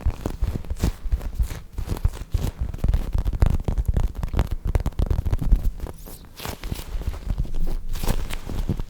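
Squishy foam toy squeezed and handled right against the microphone: irregular soft crackling and rubbing with low thumps.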